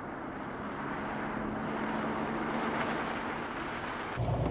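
A four-wheel-drive pickup driving over desert ground, its engine and tyre noise a steady rush that grows a little louder as it approaches. Near the end the sound cuts abruptly to a deeper, steadier engine hum.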